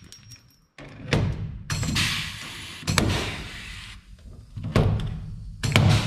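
Pneumatic pop-rivet gun setting rivets through the steel fender trim, four times. Each rivet is a sharp snap as the mandrel breaks, followed by a short fading hiss.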